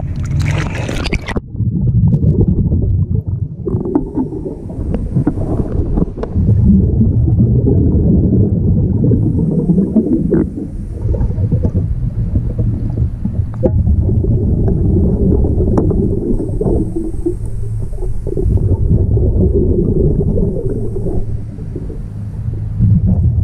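Splashing at the surface cuts off about a second in as the microphone goes underwater. After that comes the muffled underwater rumble and gurgle of a scuba diver's breathing through a regulator, swelling and fading every few seconds, with scattered small clicks and knocks of work on the outdrive.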